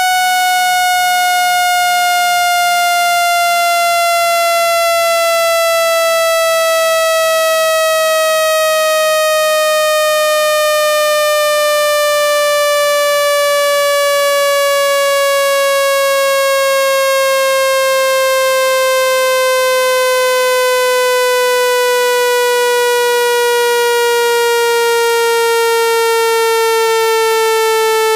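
Speaker water-eject tone: a loud, buzzy synthetic tone sliding slowly and evenly downward in pitch. It is played through a phone's speaker to shake water droplets out of it.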